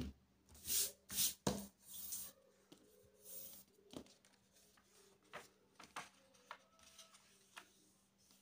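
A sheet of A4 printer paper handled and folded on a wooden table. Several rustles come as it is slid and lifted in the first few seconds, then scattered soft taps and crinkles as the folds are creased down by hand. A faint steady hum sits underneath.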